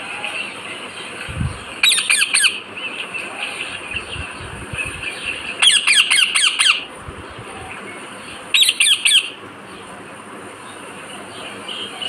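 Rose-ringed parakeet (Indian ringneck) giving three bursts of rapid, shrill squawks, each a quick run of four to six calls, the middle burst the longest.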